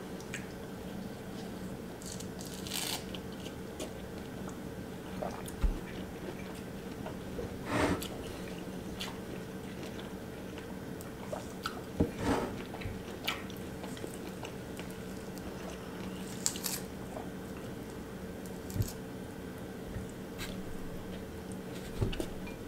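Grapefruit being pulled apart by hand over a bowl: scattered soft clicks, knocks and wet tearing sounds every few seconds, over a steady low hum.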